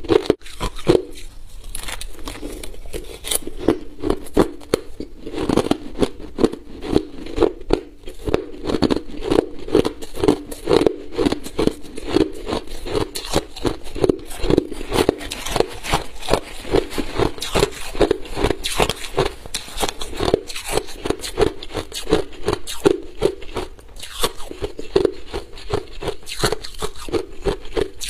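Crushed ice being chewed close to the microphone: a steady run of sharp, crisp crunches, several a second.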